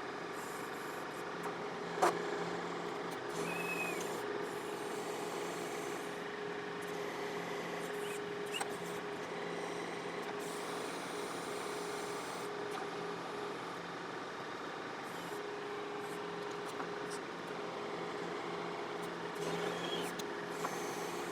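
John Deere 4052R tractor's diesel engine running steadily at low idle while it drives the backhoe's hydraulics, with one sharp knock about two seconds in.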